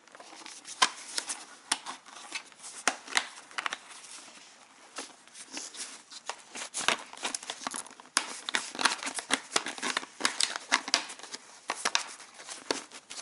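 Fabric rear liner of a snowmobile helmet being pushed and worked into the hard plastic shell by hand: continuous rustling and scuffing broken by many short, sharp clicks and scrapes.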